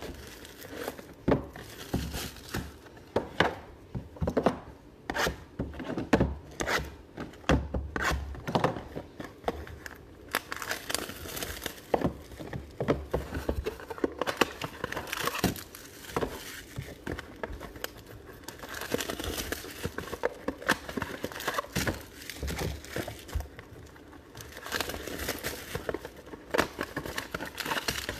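Plastic wrapping on a box of football trading cards being crinkled and torn open, with irregular crackles and clicks of handling throughout.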